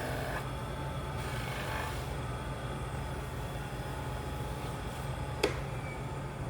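Workshop machine running steadily with a low hum, with one sharp click about five and a half seconds in.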